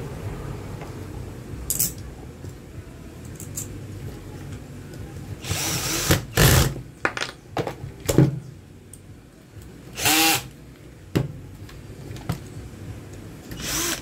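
Cordless drill-driver running in short bursts, its motor whine rising in pitch as each burst starts, driving in the screws that hold the fan motor's reduction gearbox. Two bursts come close together near the middle and another a few seconds later.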